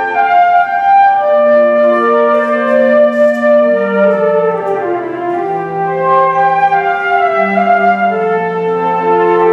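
A flute choir playing long held notes in chords, with the lowest parts sustained well beneath the melody.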